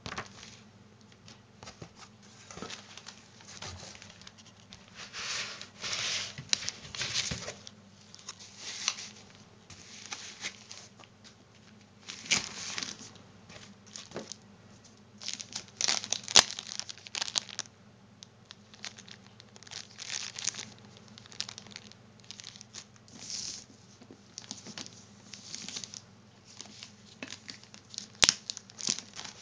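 Paper and plastic packaging handled and rustled, crinkling in irregular bursts with a couple of sharp clicks; near the end a blue plastic bag around the boxed NAS unit is gripped and pulled.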